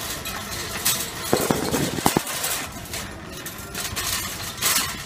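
Wire shopping trolley rattling as it is pushed over a tiled floor, its wheels and basket clattering, with a burst of louder clatters between about one and two seconds in.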